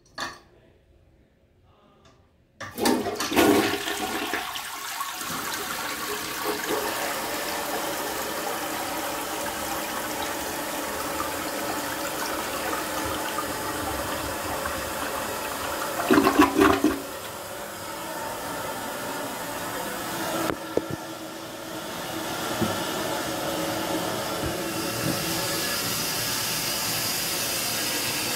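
A 1973 Gerber Mt. Vernon toilet flushed with its trip lever: a click, then after about two and a half seconds a sudden loud rush of water into the bowl, swirling. About sixteen seconds in there is a loud gurgle, and then steady running water that turns hissier near the end.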